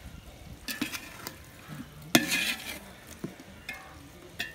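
Metal ladle stirring chicken masala in a metal cooking pot. Sharp clinks against the pot's side are each followed by a short scraping, sizzling sweep, the loudest about two seconds in and another near the end.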